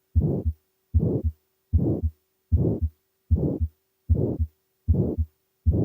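Heart of a patient with aortic stenosis, auscultated: a regular heartbeat a little faster than one a second. On every beat a murmur fills the gap between the first and second heart sounds, the systolic murmur of the narrowed aortic valve. A faint steady hum lies underneath.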